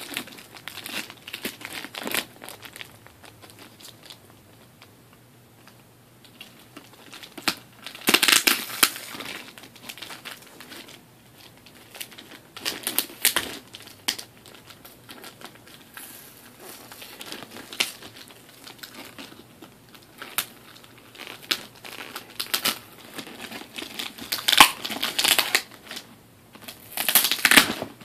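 Crinkling and rustling of shipping packaging being handled and opened, in irregular bursts, the loudest about eight seconds in and again near the end.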